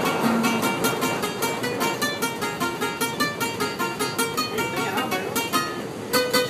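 Guitar-type plucked string instrument playing an instrumental passage alone: quick runs of picked notes with chords, steady throughout.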